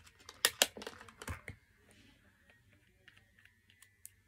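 Press-on fake nails and a small plastic case clicking and tapping as they are handled: several sharp clicks in the first second and a half, a few faint ones near the end.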